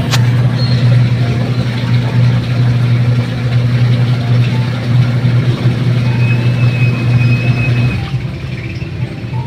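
Twin-tub washing machine's wash motor and freshly replaced gear case running with water in the tub: a steady hum with no grinding, the old noise gone. A sharp click right at the start, and the hum drops out about eight seconds in as the wash stops to reverse direction.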